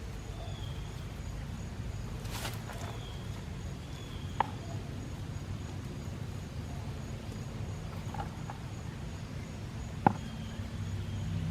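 Potatoes being dug by hand out of a bucket of soil: two short sharp knocks, about four and ten seconds in, over a steady low hum, with faint bird chirps.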